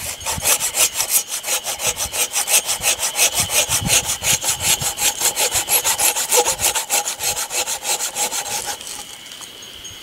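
Folding hand saw cutting through a birch log in quick, even strokes, about five a second, stopping about a second before the end.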